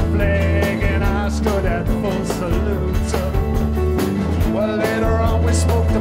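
A rock band playing live, with a steady drum beat and bass under a man singing lead.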